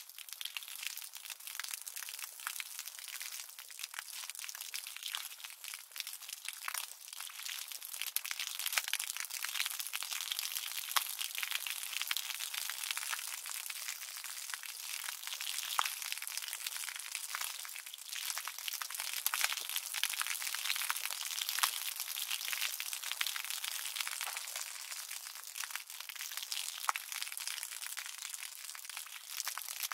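Continuous crackling, crinkling noise made of many small clicks, with no low sound beneath it.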